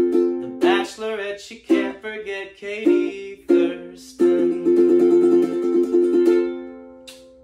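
Ukulele strummed: a few separate chords, then a fast repeated strum on one chord that rings out and fades. These are the song's closing chords after the last chorus.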